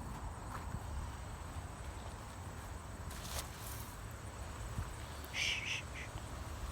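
Quiet outdoor ambience: a low rumble of wind on the phone's microphone, with faint rustling and a brief soft hiss-like sound, likely a whisper, about five and a half seconds in.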